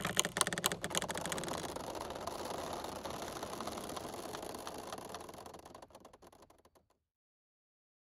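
Fading tail of an outro sound effect: rapid crackling clicks over a rush of noise, dying away gradually and gone about six seconds in.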